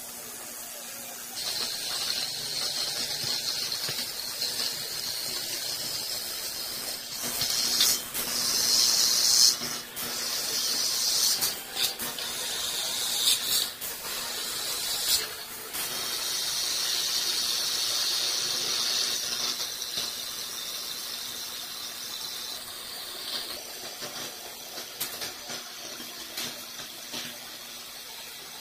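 CNC cutting machine working through a panel: a hiss that comes in about a second in, swells and dips, with several sharp clicks in the middle and a faint steady hum underneath, easing off near the end.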